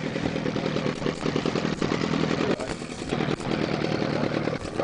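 Fishing boat's engine running steadily with an even, fast pulse, with a few short clunks over it.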